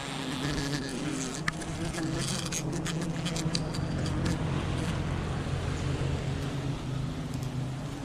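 A swarm of wild honeybees buzzing in a steady, low drone around their open comb as it is smoked with a torch.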